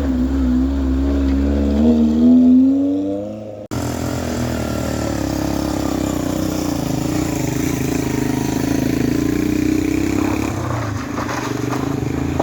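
Vehicle engine running with its pitch rising and falling, then an abrupt cut to another steady engine sound.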